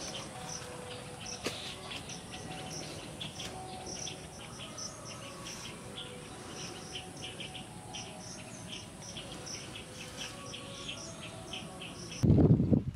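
Insects chirping in steady, short repeated pulses, with birds calling faintly under them. About a second before the end a much louder noise suddenly cuts in.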